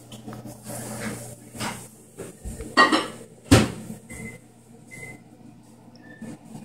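Kitchen clatter: several sharp knocks, the loudest two about three seconds in, followed by a few short high beeps.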